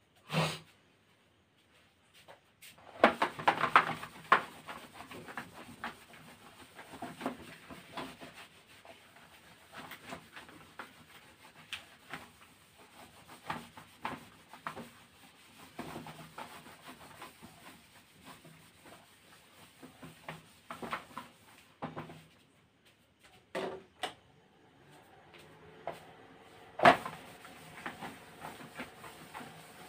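Classroom board being wiped clean with a cloth or duster: irregular rubbing and scrubbing strokes with scattered light knocks, and one sharper knock near the end.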